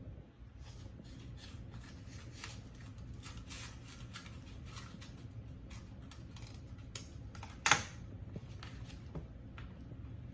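Paper and envelopes being handled and cut: a run of short rustles and snips, with one louder crinkle about three-quarters of the way through.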